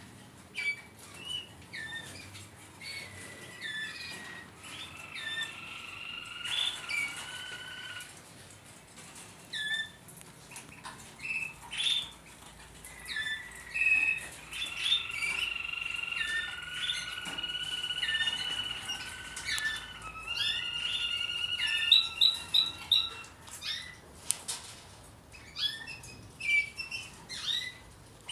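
Malinois (Waterslager) canaries in breeding cages, chirping and singing: short call notes throughout, with long steady trilled phrases at two pitches twice over, and a quick run of sharp high notes late on.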